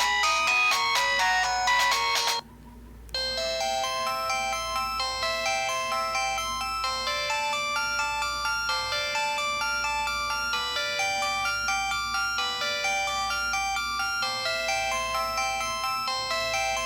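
Pantech C120 mobile phone playing its built-in polyphonic ringtones, which sound distorted. One melody cuts off about two seconds in, and after a short pause the next tune starts and keeps going.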